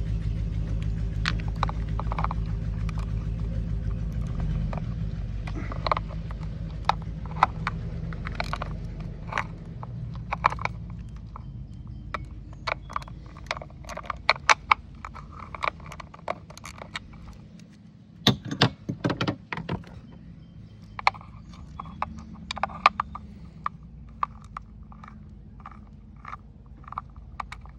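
Small metallic clicks, taps and rattles of hand tools and wire terminals as the switch box wiring on an outboard is taken apart, with a cluster of louder clicks about two-thirds of the way through. A steady low hum underlies the first third and then fades.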